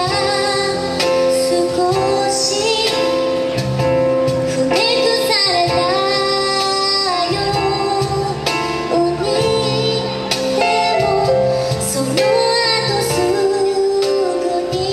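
A woman singing a slow ballad live with her band of keyboard, acoustic guitar, bass and percussion.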